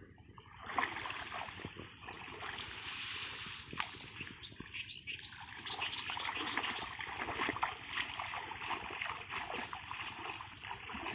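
Shallow muddy water splashing and trickling as hands work in a water-filled catfish hole, a dense crackle of small splashes that starts about a second in.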